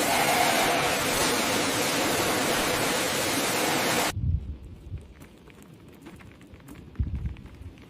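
Loud, steady rushing noise that cuts off abruptly about four seconds in. It leaves a quiet background with two low thuds and a few faint clicks.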